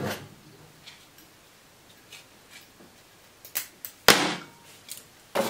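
Small clicks and ticks from stiff monofilament line and a hook being handled and bent at a fly-tying vise. A few sharper clicks come in the second half, the loudest a single knock with a short rustle after it about four seconds in.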